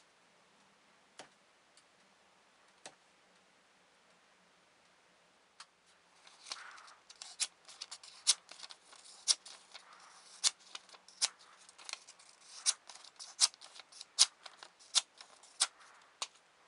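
Small folding knife blade slicing through a sheet of paper: from about six seconds in, a run of crisp snapping cuts, roughly one to two a second, over light paper rustling. A few faint isolated clicks come before it.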